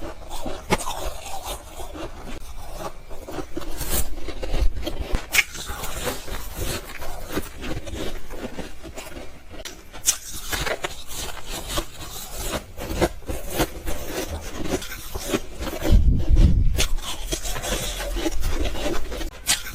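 Soft ice and freezer frost being bitten and chewed close to the microphone: an irregular run of crunching and grinding, with a heavier, deeper crunch about three-quarters of the way through.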